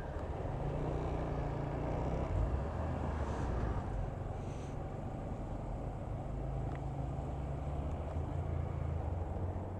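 Small motorcycle engine running at low road speed, heard from the rider's position with road and wind noise. The low engine note eases off about four seconds in and picks up again a couple of seconds later.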